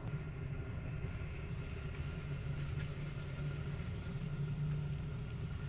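Calico mother cat purring steadily, a low, continuous, rapidly pulsing purr.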